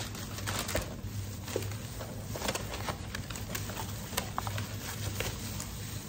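Irregular crinkling, rustling and small clicks of plastic and paper food packaging being handled, over a steady low hum.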